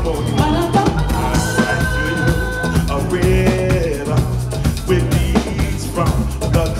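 Live band playing a love song: a male lead vocal with long held, bending notes over electric bass guitar and a drum kit keeping a steady beat.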